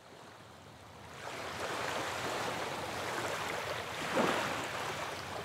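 Rushing water fading in, with a brief swell about four seconds in.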